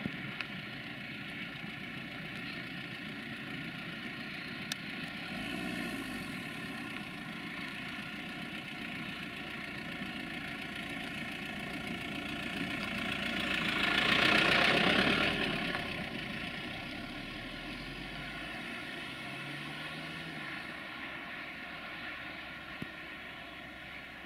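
Steady multi-toned whine of a quadcopter drone's propellers hovering and flying. A louder whoosh swells and fades about halfway through.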